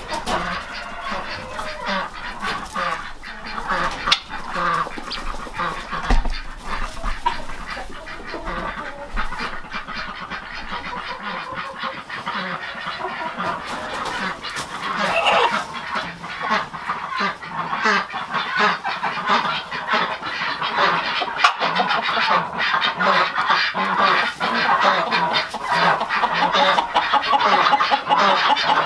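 A poultry flock, chickens among them, clucking and calling without pause; it gets busier and louder over the second half.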